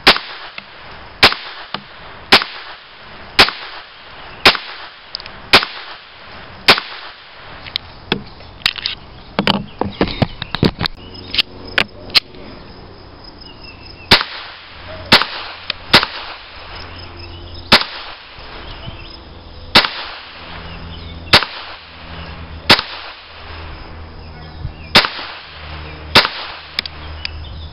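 Walther P22 .22 LR pistol firing single shots, about one a second for seven shots, then a run of quieter clicks, then about ten more shots at an uneven pace. A low steady hum sits under the second half.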